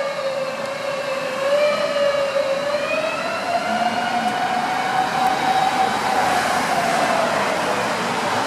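Rescue truck siren held at a steady high pitch, wavering only slightly instead of winding up and down, over traffic noise; it fades near the end.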